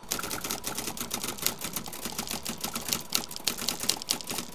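Typewriter keys clacking in a rapid, uneven run of keystrokes: a typing sound effect.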